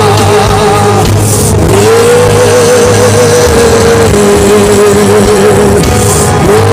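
Instrumental worship music: a sustained lead melody with vibrato that slides up into each new held note, over a steady bass.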